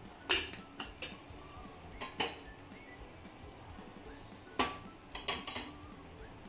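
Metal cookware and utensils clinking and knocking: a handful of separate sharp clinks, the loudest about a third of a second in and again about four and a half seconds in.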